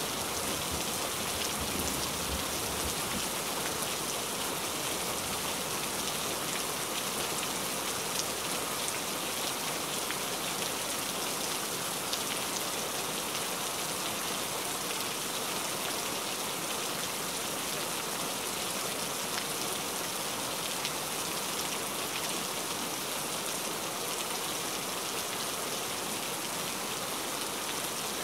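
Steady rain falling, an even hiss of many drops. A low rumble of thunder dies away in the first few seconds.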